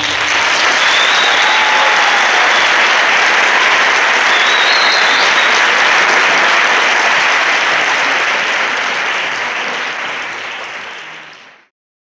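Audience applauding at the end of a dance performance, steady at first, then fading away and cutting off near the end.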